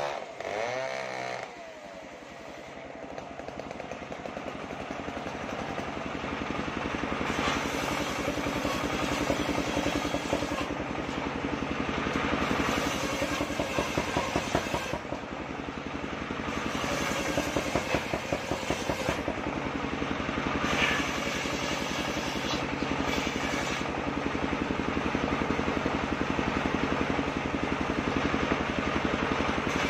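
Engine-driven circular saw machine running steadily, its noise building over the first several seconds and staying loud with a rough, rapid pulsing.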